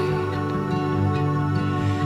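Background music: a slow, soft track with long held notes.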